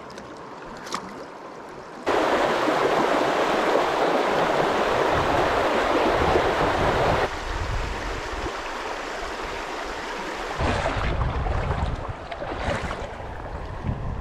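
Shallow river water rushing over stones as a steady noise. It jumps suddenly much louder about two seconds in and drops back about five seconds later. A low rumble joins in near the end.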